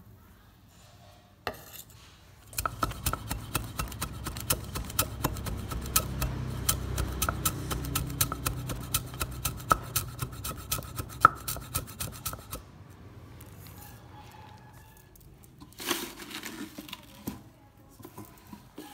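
A cleaver chopping fast on a thick round wooden chopping block. It strikes several times a second for about ten seconds, each stroke a sharp knock with a dull thud of the block under it. A brief rustle comes near the end.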